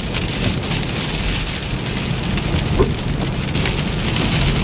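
Heavy rain hitting a moving car in a steady, crackling hiss, with the low rumble of the car and wet road underneath.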